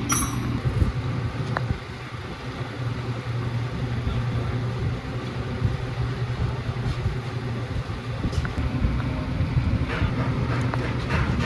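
Small motorcycle engine running steadily at idle, with an even low hum that holds its pitch and a few faint ticks on top.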